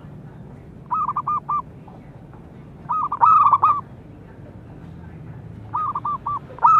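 Zebra dove (perkutut) cooing: phrases of quick, clipped coo notes repeated about every two seconds, four phrases in all, the last starting near the end.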